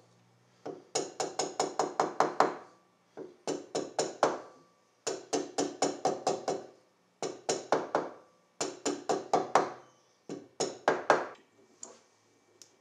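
Runs of quick, light hammer taps on the crankcase inspection window plate of a 1937 Scott two-stroke motorcycle engine: about seven bursts of several rapid taps each, with short pauses between. The taps are meant to break the plate's stuck seal, which the mechanic suspects has been glued.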